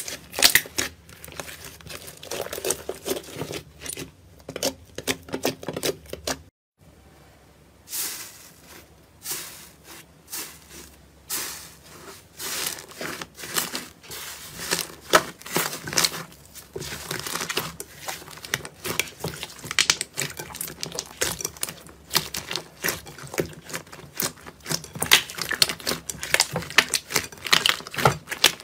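Hands kneading and pressing slime: irregular sticky crackles, clicks and squelches. A brief silent break about six and a half seconds in, then a second, fluffy slime is worked with the same crackling.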